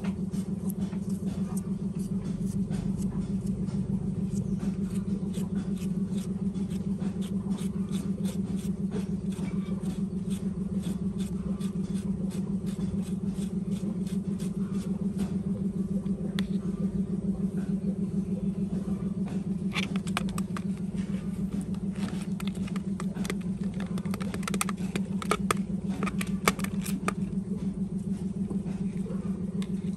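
Knife blade scraping gel off a peeled aloe vera leaf in repeated short strokes, then tapping and stirring in a plastic bowl near the end, over a steady low mechanical hum.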